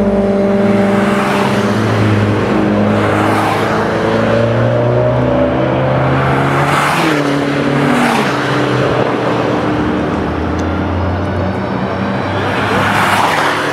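Several track-day cars racing past one after another down a circuit's main straight, engines running at high revs, with one engine's pitch dropping as it goes by about seven seconds in.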